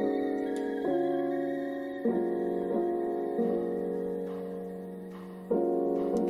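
Background piano music: slow, held chords, a new one struck about five times.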